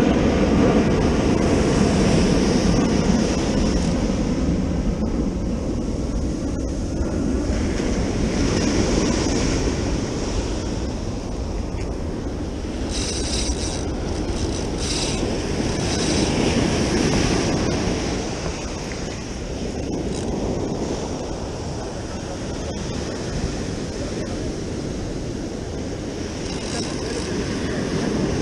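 Ocean surf washing up a sandy beach, with wind buffeting the microphone.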